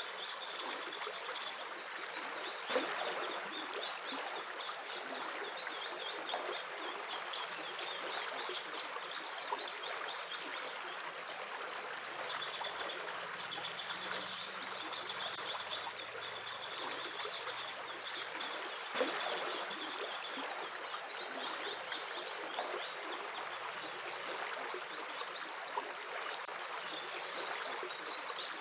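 A stream of running water, with many small birds chirping throughout. Two brief louder clicks or splashes come at about three seconds in and again near the middle.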